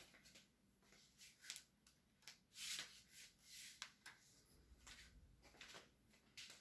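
Near silence: faint, irregular rustles and clicks of close handling, over a faint steady low hum of distant industrial noise.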